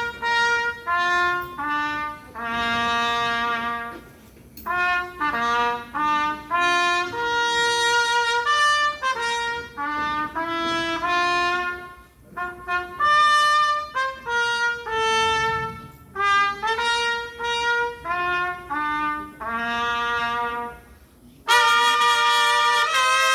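Live polka band music led by trumpet: a melody of separate held notes in short phrases with pauses between them. About 21 seconds in, a fuller band sound comes in.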